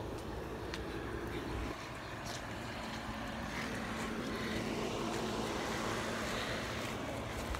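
A steady distant engine hum, with a few faint clicks.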